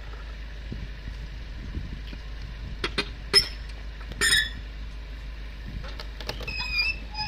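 Farm tractor engine idling low, with a few sharp metal clanks about three and four seconds in as the trailer's tailgate latches are worked. Short high squeaks near the end.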